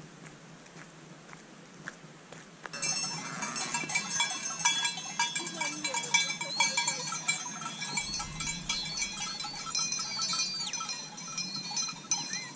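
A flock of sheep with neck bells starts suddenly about three seconds in: many bells ringing and clinking together, with sheep bleating now and then.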